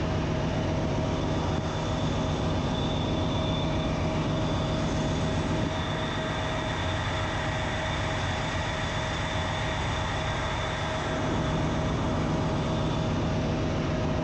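Ship's engine-room machinery noise: a steady drone with a constant whine on top, from the running auxiliary machinery and diesel generators.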